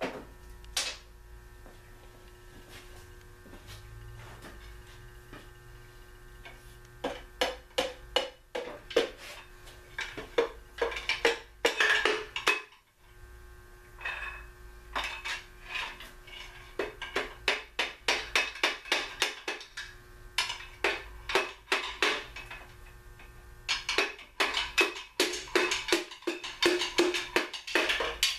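Metal hand tools (a long pry bar and a screwdriver) tapping and clinking against the crankshaft of a 1956 Packard engine during teardown, in several runs of quick taps with short pauses between them, over a steady hum.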